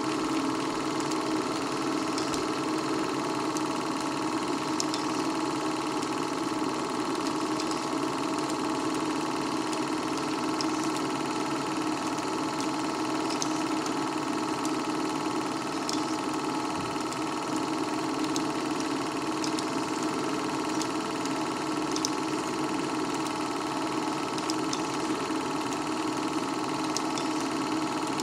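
Small-gauge movie projector running: a steady mechanical whir from its motor and film transport, with faint scattered ticks.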